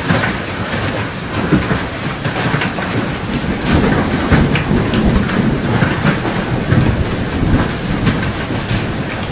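Heavy hail falling on wet ground: a dense, steady clatter of many small impacts over a rain-like hiss.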